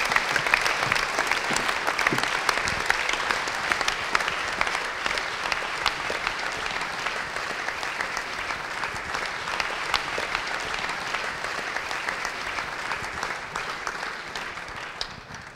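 Large seated audience applauding steadily, the clapping dying away near the end.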